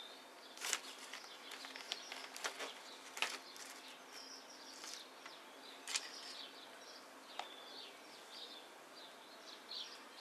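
Small clicks and rustles of hands working a plastic cable tie around a ficus trunk and its roots, with birds chirping faintly in the background.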